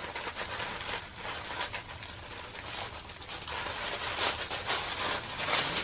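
Tissue paper rustling and crinkling as it is unfolded by hand, getting louder in the last couple of seconds.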